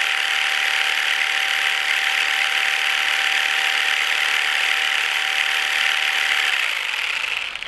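Jigsaw (Vybe) percussive massage gun running steadily at its fifth speed, about 2,250 RPM, a loud even motor sound with a thin steady whine that stops shortly before the sound drops away near the end.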